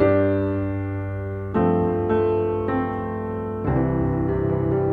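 Slow piano music: chords struck every half second to a second, each ringing on and fading.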